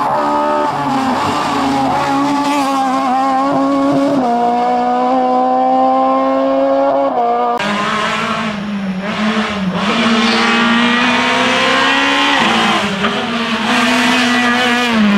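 Rally car engines at high revs, one after the other: the first note holds steady and then steps down in pitch, and about seven and a half seconds in the sound switches abruptly to a second car whose engine note wavers up and down as it is driven through the stage.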